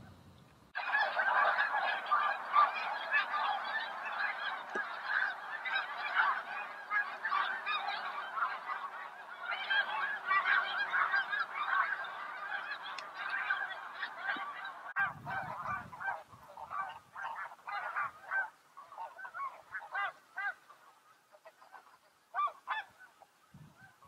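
Large flock of snow geese honking, a dense chorus of overlapping calls that starts abruptly about a second in. About fifteen seconds in it thins to scattered, fainter separate honks.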